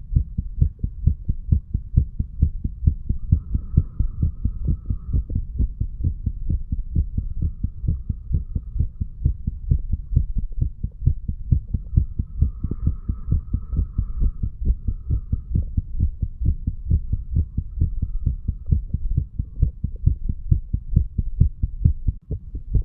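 Human heartbeat recording of a 35-year-old man after heavy drinking: a steady, unbroken run of low thumping beats.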